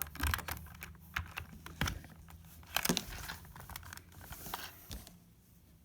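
Plastic LEGO bricks and parts clicking and knocking together as they are handled, in a run of irregular light clicks that thins out near the end.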